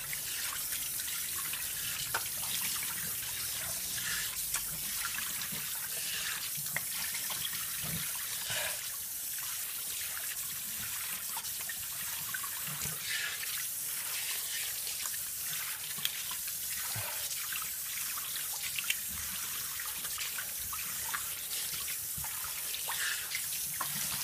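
Tap water running steadily into a sink, with small splashes as hands scoop water to rinse shaving lather off a face.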